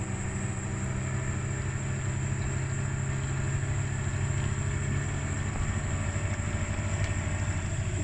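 A small boat engine idling steadily with an even low hum.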